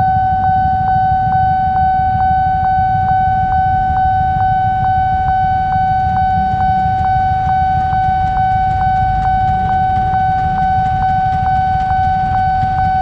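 Railroad crossing warning alarm sounding while the boom barrier is down: one steady high tone with a faint click about twice a second, over the low rumble of waiting motorcycles.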